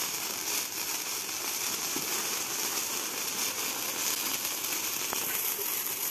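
Several hand-held sparklers burning at once, giving a steady crackling hiss of showering sparks.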